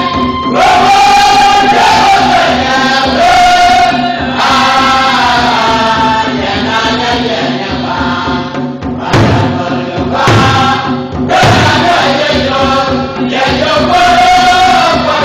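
A church choir singing a hymn together, with long held notes. Three low thumps about a second apart fall just past the middle.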